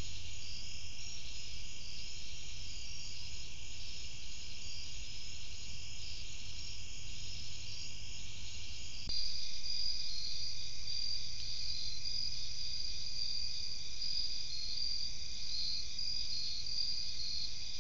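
Night chorus of crickets and other insects, a dense, steady, pulsing trill. About nine seconds in it switches abruptly to a slightly louder chorus with a different rhythm.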